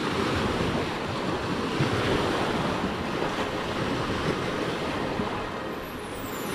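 Wind noise buffeting the microphone outdoors: a steady rushing hiss with no clear animal calls or voices.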